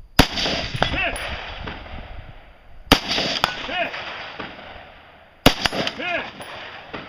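Three rifle shots about two and a half seconds apart, each echoing and fading, with a faint clang of a hit on a distant steel target under a second after each. A short called-out voice follows each shot.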